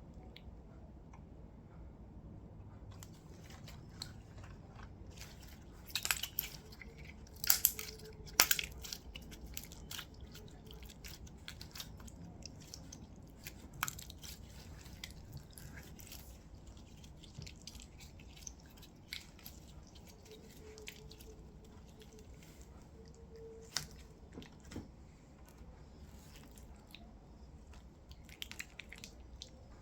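Glossy slime and modelling clay being squeezed and mixed by hand: sticky, wet clicks and crackles. They come in a loud cluster about six to nine seconds in, with a few single louder pops later.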